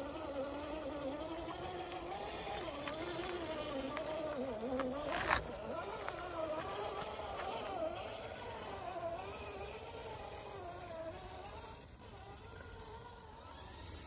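Drivetrain of a 1/10-scale RC rock crawler, a Holmes Hobbies Crawlmaster Sport 13-turn brushed motor through a geared transmission, whining as it crawls over rock. Its pitch rises and falls with the throttle. There is one sharp knock a little after five seconds in.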